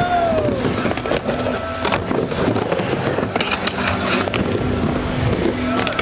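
Skateboard wheels rolling on a wooden mini ramp, with sharp clacks of the board and trucks, over music.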